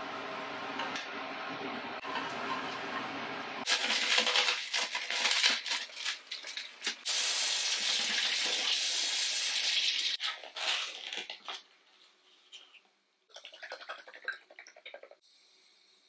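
A kitchen tap running and splashing as strawberries are rinsed under the stream. It starts about four seconds in, after a few seconds of a steady, quieter hiss from a pan of stew simmering on a gas hob, and stops around eleven seconds in, leaving a few faint short sounds.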